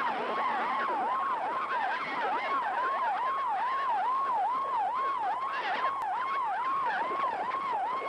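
A siren-like alarm signal received on the 9715 kHz shortwave frequency, played through a portable shortwave receiver's speaker. It is a warbling tone that swoops up and down about two and a half times a second over band noise, with fainter overlapping swoops above it that suggest more than one alarm on the frequency.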